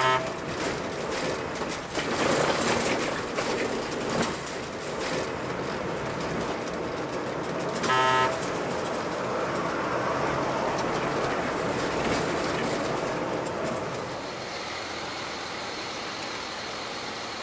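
A bus's horn blasts briefly twice, at the start and about eight seconds in, over the steady rumble of the bus's engine and road noise heard from inside the cab.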